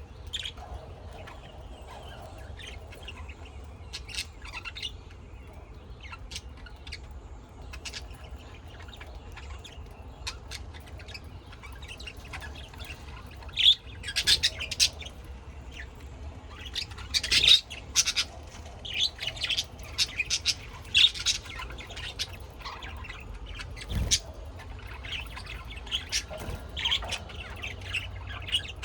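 Birds chirping and squawking, many short sharp calls that come thickest in the middle, over a steady low rumble, with a single thump about two-thirds of the way through.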